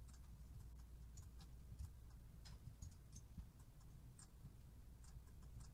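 Faint, irregular clicks of a computer mouse and keyboard, roughly two a second, over a low steady hum.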